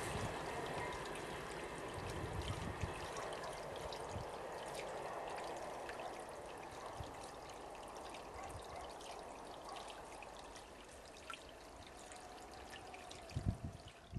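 Freight train rolling away into the distance, a steady rushing rumble of wheels on rail that slowly fades, with a few low thumps near the end.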